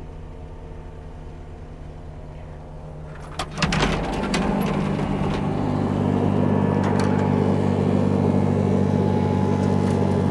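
Takeuchi skid steer's diesel engine idling, heard muffled at first; about three and a half seconds in come sharp clunks, likely the cab door opening as the operator gets out, and the engine then sounds louder and steady.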